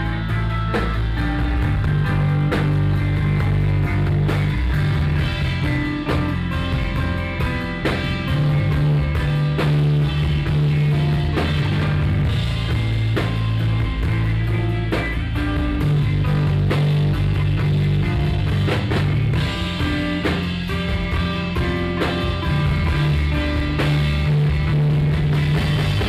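Rock band playing live, recorded on a phone: electric guitars and drums over loud held bass notes that change every couple of seconds.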